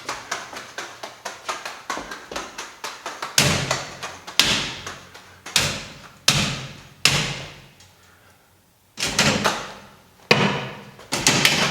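Juggling balls knocking against the Magnet Machine juggling prop during a 5-ball juggling test at its raised height: a quick run of light knocks, then heavier thuds that each ring out, a short lull about eight seconds in, then more hits.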